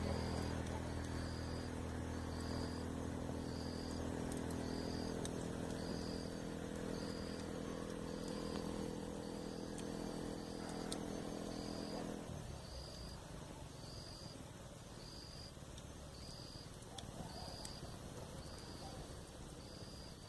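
A vehicle engine hums steadily and cuts off abruptly about twelve seconds in. Over it, a night insect chirps in a high, even pulse a little faster than once a second, and a few faint crackles come from a campfire.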